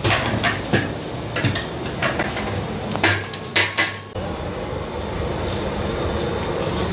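Metal cooking pots and utensils clanking, about eight sharp knocks over the first four seconds. Then a steady low noise takes over.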